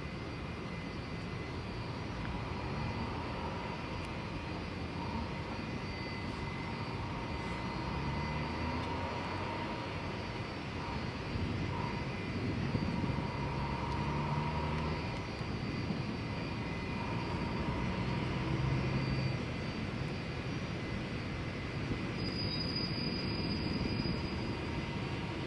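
Antonov An-124's four Progress D-18T turbofans running steadily during an engine run-up while the aircraft holds lined up on the runway: a steady jet rumble with high whining fan tones, slowly getting a little louder.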